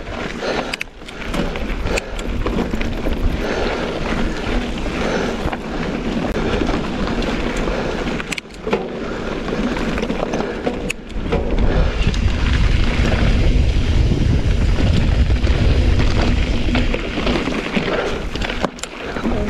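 Mountain bike rolling over a rocky dirt singletrack: tyres crunching on gravel, with scattered rattles and clicks from the bike, and wind buffeting the camera microphone, heavier for several seconds in the second half.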